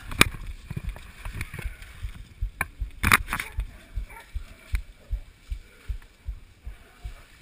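Hurried footsteps through forest undergrowth, heard as soft regular thumps about two to three a second through a body-carried camera, with rustling of brush and gear and a sharper knock about three seconds in.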